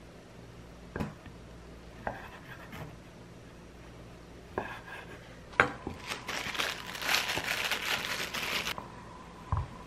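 Chef's knife cutting raw sirloin steak into cubes on a wooden cutting board: a few separate knocks of the blade on the board. From about six seconds in, a few seconds of crinkling, then a low thud near the end.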